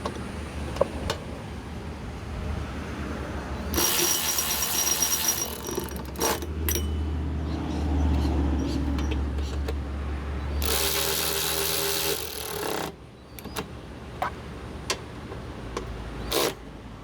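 Power driver run twice, about two seconds each, driving in the bolts of the spindle reinforcement plate on a mower deck. Short clicks and clinks of tools and hardware come in between.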